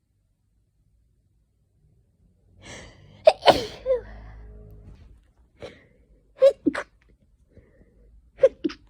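A person's sneezing fit: a drawn-in breath builds for about a second, then a loud sneeze, followed by shorter, sharp sneezes in quick pairs near the middle and near the end. The sneezer puts the fit down to hay fever or a cold coming on.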